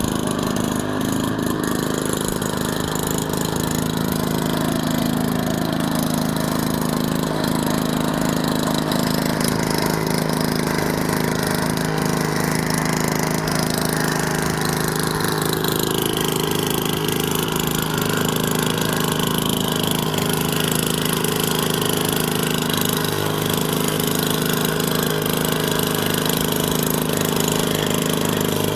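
50cc gasoline engine of a large radio-controlled model airplane running steadily on the ground.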